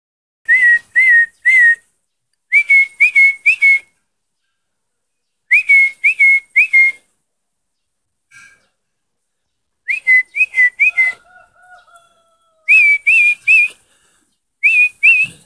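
Sharp whistle pips, each a quick rise that settles at one pitch, blown in quick groups of three or four with short pauses between: a person whistling to call puppies.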